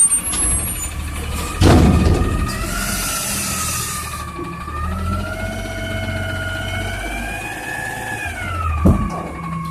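Garbage truck working: engine running under a whine that slowly rises and falls in pitch, with a loud clatter about two seconds in and a short knock near the end.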